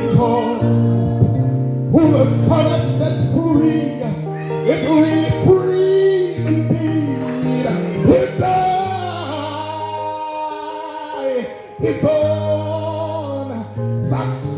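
Gospel music: sustained low instrumental chords under a sung melody with long held, bending notes.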